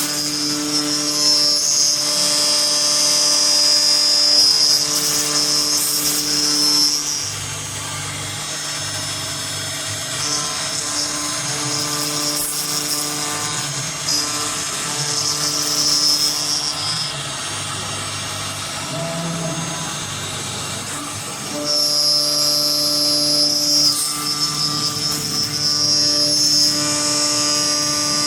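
Automatic wood boring and mortising machine running: a steady motor hum with a high spindle whine for the first several seconds and again near the end, and a lower, rougher running sound between, as the machine works through its cycle.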